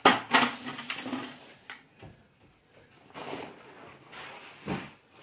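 Aluminium slatted camping-table top being pressed down onto its frame pins: a sharp clack as it seats, then a second or so of handling noise. Lighter handling follows, with another short knock near the end.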